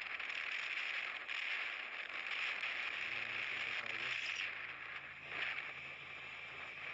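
Moving motorbike: steady rushing road and wind noise, with the bike's engine running low underneath, most clearly from about three seconds in.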